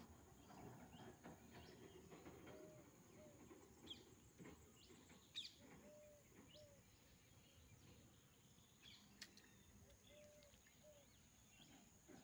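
Near silence: faint open-air ambience with a few brief, faint bird chirps and short calls scattered through it.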